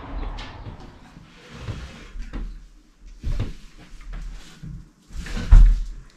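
A series of dull knocks and bumps, like a door and furniture being handled, the loudest about five and a half seconds in.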